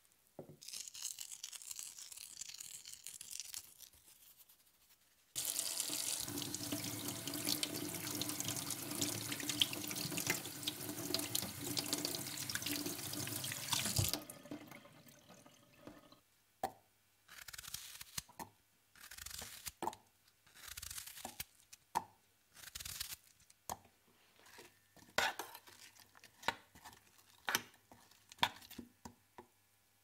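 Kitchen tap running steadily into a stainless steel sink for about nine seconds, then shut off abruptly. Scattered short clicks and knocks follow.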